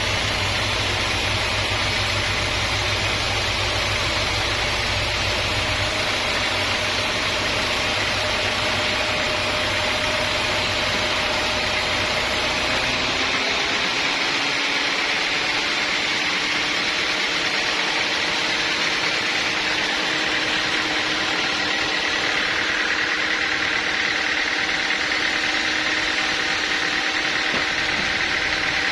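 Sawmill machinery running steadily with a continuous mechanical hum and hiss. About halfway through, the deep rumble drops away and its tone shifts a little lower, then holds steady.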